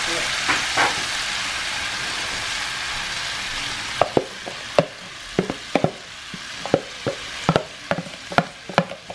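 Fish and sliced bell peppers sizzling in butter in a nonstick skillet. From about four seconds in there is a run of sharp, irregular clacks as sliced peppers and onions are tipped from a plastic bowl into the pan.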